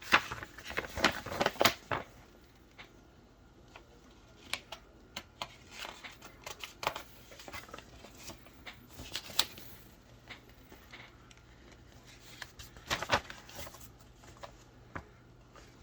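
Pages of a paper instruction manual being handled and leafed through: quick rustles and page flicks. They come thick in the first two seconds, then sparser.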